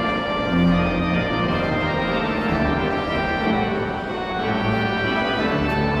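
Kelvingrove's Victorian Lewis & Co. pipe organ playing: full sustained chords over a bass line that moves from note to note every second or so.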